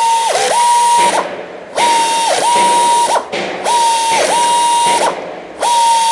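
Pneumatic tapping arm's air motor running in repeated tapping cycles, about four in a row with short pauses between. Each run is a steady high whine that drops in pitch briefly partway through, as the tap changes direction or takes load.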